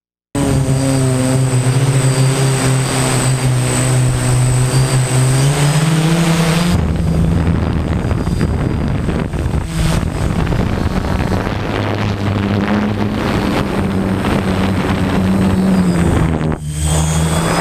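F450 quadcopter's motors and propellers buzzing steadily, heard from the camera on board, with hiss over it. The pitch rises about five to six seconds in as the motors speed up, then shifts abruptly about seven seconds in and dips briefly near the end.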